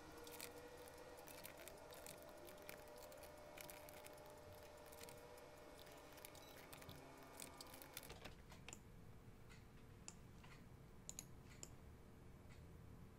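Faint, scattered clicks of a computer keyboard and mouse.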